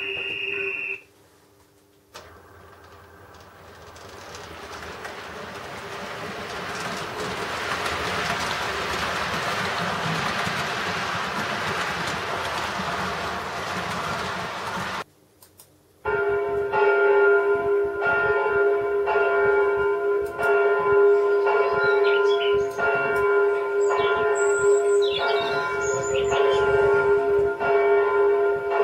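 Recorded railway sound effects played over loudspeakers. First a train rolling by, its noise swelling and then holding before cutting off abruptly. Then, after a brief pause, church bells ringing in repeated strikes.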